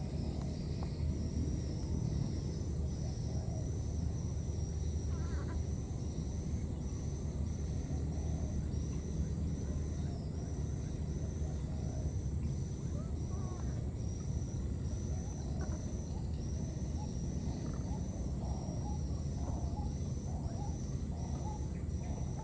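Outdoor ambience: a steady low rumble under a high, even chirp repeated two to three times a second, with faint scattered chirps in between.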